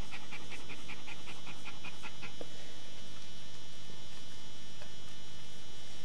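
A dog in labour panting rapidly, about five quick breaths a second, which stop about two seconds in. A steady electrical hum runs underneath.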